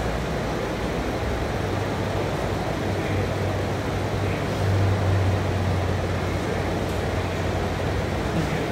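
Steady rumbling noise with a low hum that swells about halfway through, then eases.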